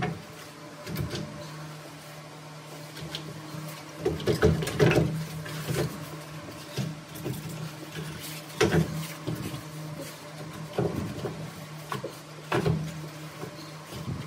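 Irregular knocks and clatters of a heavy rock being shifted against the steel vise of a lapidary slab saw, the loudest a few seconds in, over a steady low hum.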